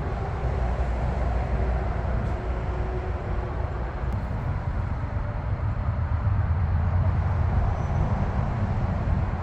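Loud, steady low rumbling noise with no clear pitch, swelling slightly in the middle.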